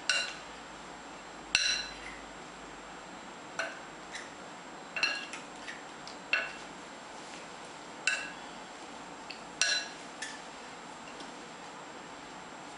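Utensils clinking against a bowl as glass noodles are tossed with sauce: sharp clinks that ring briefly, about one every second or two.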